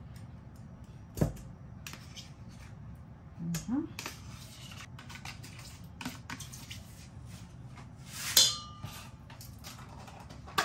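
A spoon knocking and scraping against a stainless steel mixing bowl as soft cream cheese is scooped out of a tub: a few scattered clinks and knocks. The loudest comes about eight seconds in, with a brief metallic ring.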